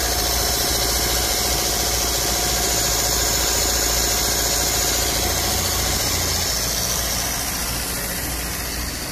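Maruti Suzuki Swift's 1.3 DDiS four-cylinder turbodiesel idling steadily with a steady hiss over it, during an engine decarbonisation with cleaning gas fed into the air intake.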